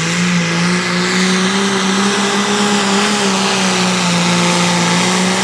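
Hot farm class pulling tractor's engine running loud at high revs, holding a nearly steady pitch.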